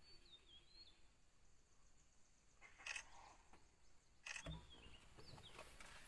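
Faint outdoor ambience with short whistled bird calls, one near the start and a few more from about four and a half seconds in. There is a brief noise just before the three-second mark, and a low rumble comes in about four seconds in.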